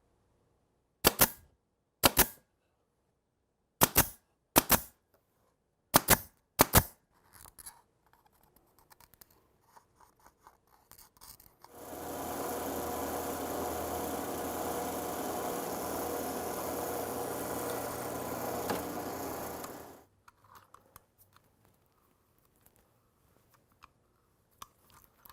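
Six sharp, loud snaps in three pairs, then light handling noise, then a machine running steadily for about eight seconds before it cuts off suddenly.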